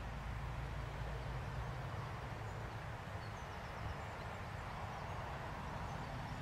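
Steady low rumble and hiss of outdoor ambience, with a few faint bird chirps between about two and five seconds in.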